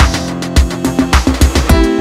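Background music with a fast, steady electronic beat and deep sliding bass notes.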